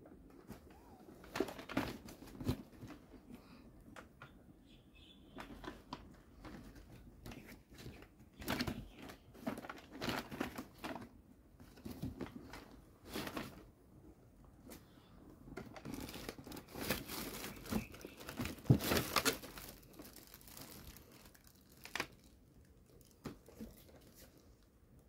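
Cardboard box being handled and opened, with plastic packaging crinkling and rustling in irregular bursts, loudest about two-thirds of the way through.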